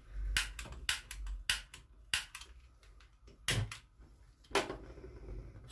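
Rapid, irregular clicking of a spark igniter as a gas stove burner is lit, followed by two louder knocks near the middle.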